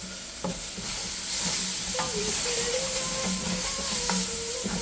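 Curry seasoning frying in hot oil in a cooking pan, sizzling steadily, with a spoon knocking against the pan about four times as it is stirred.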